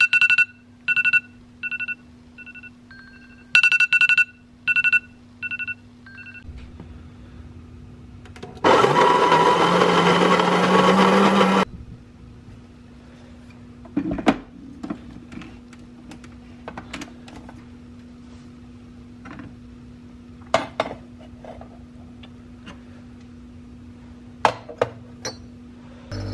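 Smartphone alarm going off in short repeated beeps for about six seconds. Then an electric coffee grinder runs for about three seconds, its motor pitch rising slightly, followed by scattered clicks and a knock as the portafilter is fitted and locked into an espresso machine.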